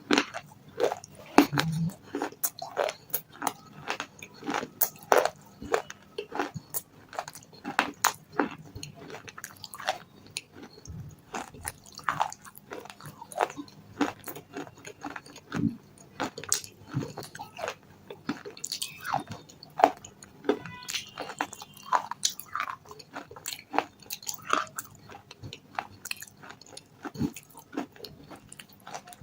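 Close-up biting and chewing of something hard and crunchy, with many sharp, irregular crunches, several each second.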